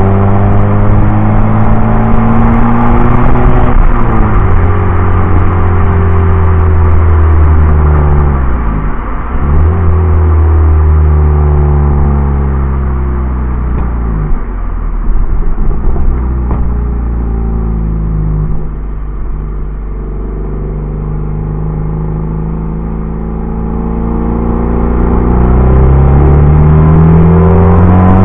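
Ford Fiesta Mk7's engine and exhaust under way, pulling up through the gears: pitch rises, drops sharply at shifts about 4 and 9 seconds in, eases off to a quieter steady cruise in the middle, then climbs again near the end. Heard from a camera mounted on the outside of the car.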